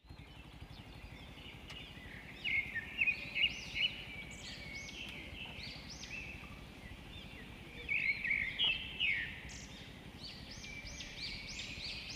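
Birds chirping with many short rising-and-falling notes, in louder clusters a few seconds in and again about eight seconds in, over a steady low background noise.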